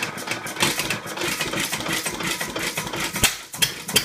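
Goold, Shapley and Muir hit-and-miss engine running with a rapid, uneven metallic clatter, with one sharper knock about three seconds in.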